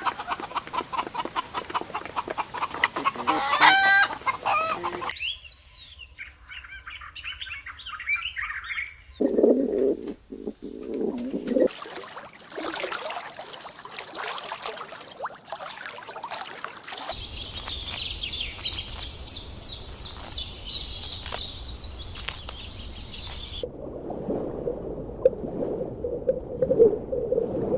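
A series of short cut-together clips of birds and fowl calling: honking calls at the start, then high chirping, clucking fowl, and bursts of rapid high chirps, each clip breaking off abruptly at a cut.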